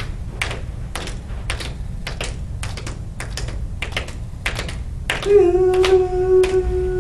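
Hand drums tapped by a group keeping a beat, many short taps a little out of step with each other, about two to three a second. About five seconds in, a voice starts singing one long, steady held note over the taps.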